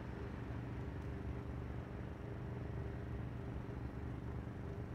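An engine idling steadily at an even pitch, with a light hiss behind it.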